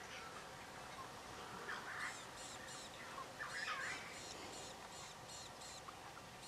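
Birds calling in the bush: two runs of quickly repeated high notes, about three a second, with lower slurred calls between them.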